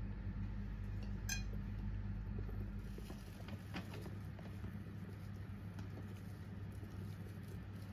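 Kitchen handling sounds over a steady low hum: a sharp ringing clink of a dish or utensil about a second in, a lighter clink near four seconds, then faint taps as grated cheese and toppings are scattered onto a pizza in a baking tray.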